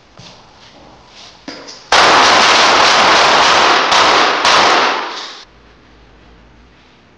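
A long, loud burst of automatic gunfire, starting suddenly about two seconds in, running for about three and a half seconds with two short breaks near the end, then stopping abruptly.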